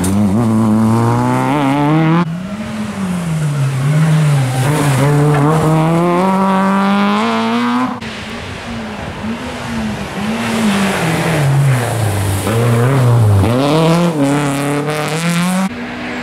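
Rally cars passing one after another, each engine revving hard, its pitch climbing through the gears and dropping at every shift or lift.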